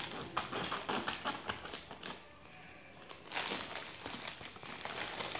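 Scissors cutting along the edge of a plastic courier mailer, the plastic crinkling and crackling. Quick crackles and snips for about two seconds, a short lull, then more rustling of the plastic.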